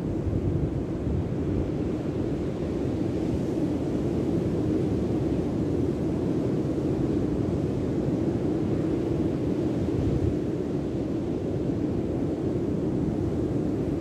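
Steady low rush of wind buffeting the microphone, mixed with the surf of waves breaking on the beach.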